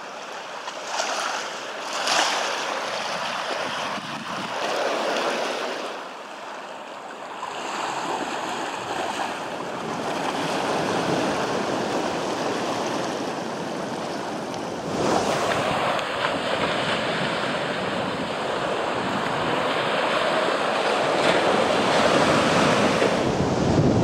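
Ocean surf washing in, swelling and easing in waves, with wind on the microphone.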